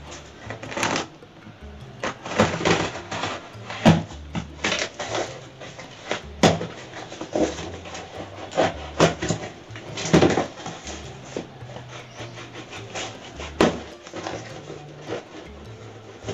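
Scissors snipping and scraping at packing tape on a small cardboard box, with the cardboard tapped and its flaps pulled open: irregular sharp clicks, scrapes and rustles.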